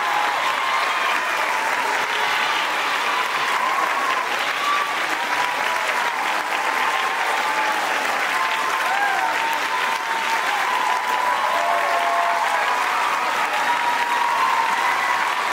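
Audience applauding steadily, with scattered cheers and whoops rising and falling over the clapping.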